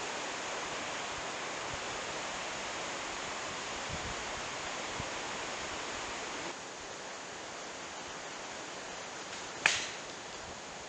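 A golf club striking a ball off the tee, one sharp crack with a short ringing tail near the end. Before it there is a steady outdoor hiss of wind and leaves.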